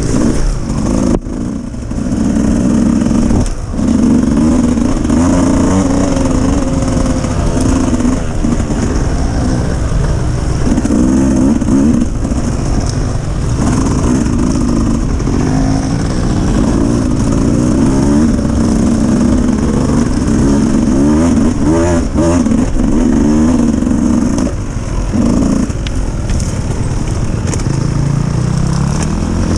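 Dirt bike engine running and revving up and down repeatedly, with a rising rev near the end.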